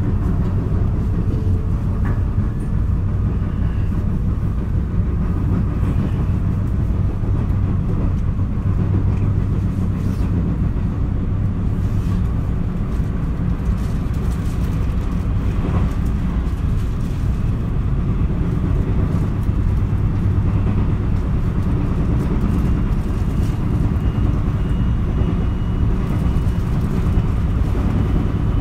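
Interior running noise of a JR West 223 series electric multiple unit's KuMoHa motor car under way: a steady low rumble of wheels on rail with scattered knocks. The set has a flat spot on a wheel, which knocks once on every turn of that wheel.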